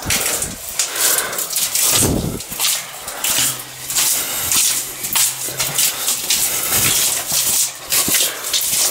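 Footsteps in rubber boots along a narrow tunnel floor: a run of scuffing, shuffling steps with rubbing and brushing noise, and a low steady hum for a few seconds in the middle.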